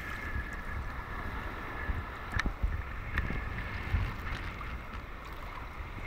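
Small sea waves sloshing and lapping around a camera held at the water's surface, with wind buffeting the microphone in a low rumble. A couple of sharp splashes strike about two and a half and three seconds in.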